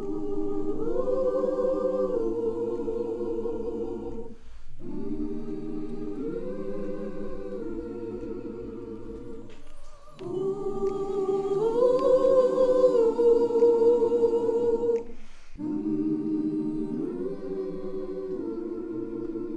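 Gospel choir singing held, wordless chords without accompaniment, in four phrases of about four seconds each; partway through each phrase the chord steps up in pitch, then settles back.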